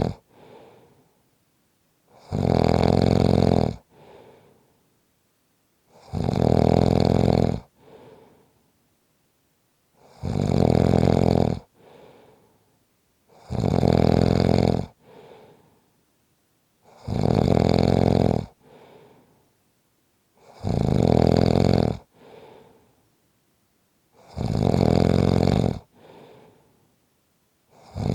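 A person snoring in a steady rhythm: a loud snore about every four seconds, each followed by a fainter, shorter breath.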